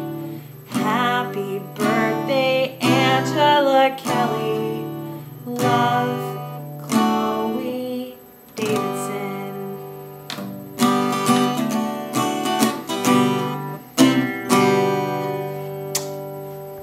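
Acoustic guitar strummed in a song's closing bars: chords struck about once a second and left to ring, the last chord struck near the end and fading away.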